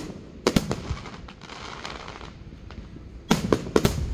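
Aerial firework shells bursting: a couple of sharp bangs about half a second in, a few fainter pops after them, then a quick run of loud bangs near the end.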